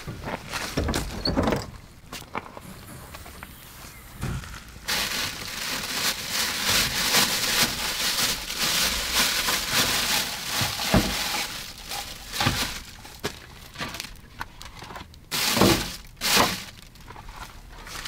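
Clunks of the latches and side hatch of a pickup truck's bed canopy being opened. Then a stretch of rustling, with knocks and clatter, as items are taken from its storage shelves; the loudest knocks come near the end.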